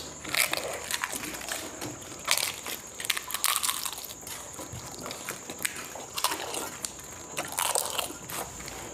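Panipuri (golgappa) shells crunching as they are bitten and chewed in quick, irregular mouthfuls, the crisp cracks wet with the spiced water, close to a clip-on microphone.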